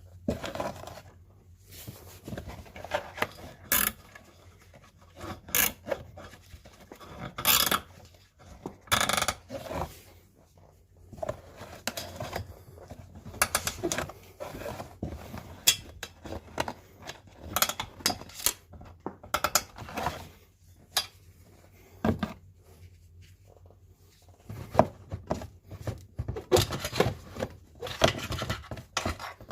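Irregular clicks, knocks and scrapes of hand tools and parts being handled, with a short lull about two-thirds of the way through.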